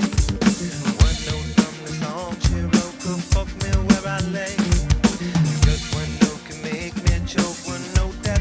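Drum kit played in a steady groove of kick and snare strikes, over backing music with a bass line and a singing voice.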